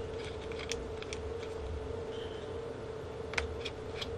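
Small scattered clicks and ticks of a precision screwdriver turning screws inside an open MacBook Pro's aluminium case, with one sharper click about three and a half seconds in, over a steady hum.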